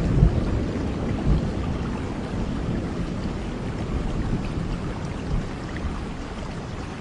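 Steady rain falling, under a low rumble of thunder that slowly fades away.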